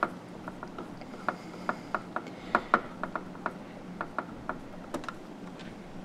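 Hand screwdriver turning a screw into the lid of a plastic project box: a run of small, irregularly spaced clicks that stops about five seconds in.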